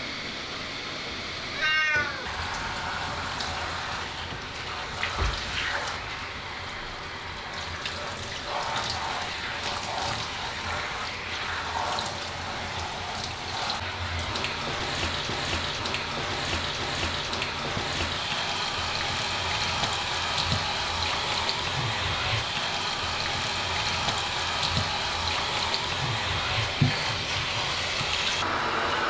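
A Ragdoll cat gives one loud meow about two seconds in. Then water from a shower head wrapped in a cloth runs steadily, splashing over the cat's wet fur.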